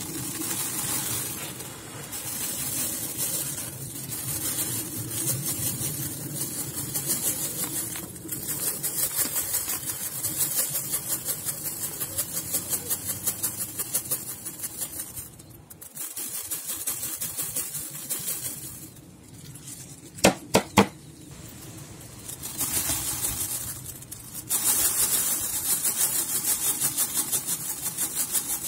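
Small perilla seeds rattling and swishing around a plastic basin as it is swirled for winnowing, in pulsing stretches. Two sharp taps come about two-thirds of the way through.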